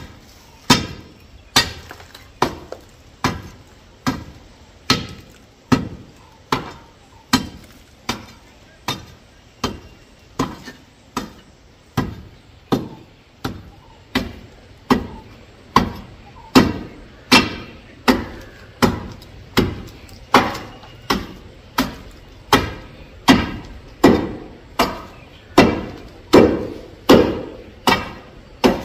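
Steady, evenly paced heavy strikes of a kitchen tool, a little more than one a second, getting louder in the second half.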